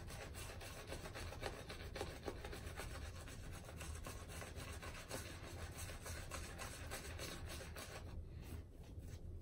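Synthetic shaving brush scrubbing Barrister's Reserve shaving lather around on a stubbled face: a faint, steady, bristly rubbing of quick back-and-forth strokes that dies down about eight seconds in. The lather is still too dry, so the brush drags.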